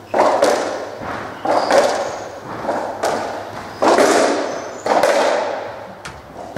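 A racketball rally: the hollow rubber ball smacks off the racket strings and the court walls about once a second, sometimes two hits close together, each hit ringing out in the court's echo.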